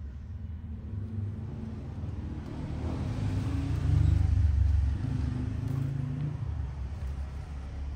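A motor vehicle's engine rumbling past, growing louder to a peak about halfway through and then fading away.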